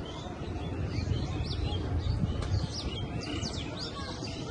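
Birds chirping: many quick, high calls that sweep downward, repeated throughout, over a steady low rumble.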